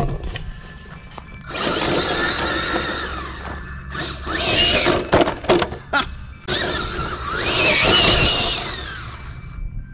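Castle Mamba Micro X2 sensored brushless motor and the drivetrain of an RC crawler whining under throttle in three bursts, the pitch rising and falling with speed, with short pauses between.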